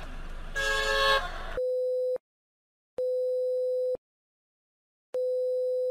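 Three long electronic beeps at one steady mid pitch, each lasting up to about a second, with silence between them. They follow a moment of road noise and a brief pitched tone in the first second and a half.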